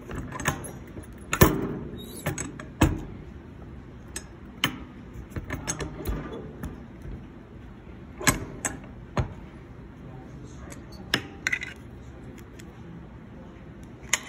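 Hand-operated pin-back button press in use: irregular sharp metal clicks and clunks as the steel dies are turned and the lever is pulled, with button shells clinking.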